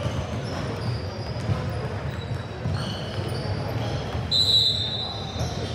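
Basketball game in a gym: the ball bouncing, short high sneaker squeaks on the court, and voices echoing in the hall, with one louder squeak about four and a half seconds in.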